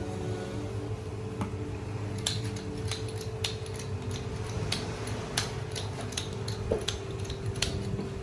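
Sharp, irregular clicks and taps of kitchen utensils, about one every half second to a second after the first two seconds, over a steady low kitchen hum.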